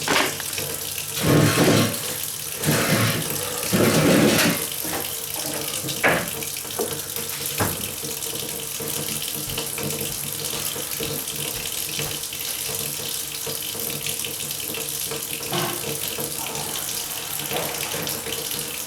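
Kitchen tap running steadily into the sink, with several louder splashes and a couple of sharp knocks in the first eight seconds.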